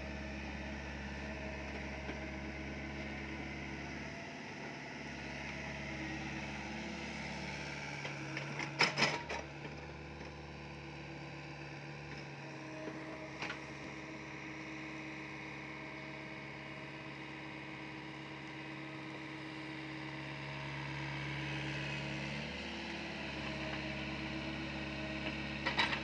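SDLG mini excavator's diesel engine running steadily while it digs soil, its note shifting a little a few times. A cluster of sharp knocks comes about a third of the way in, with a single knock around halfway.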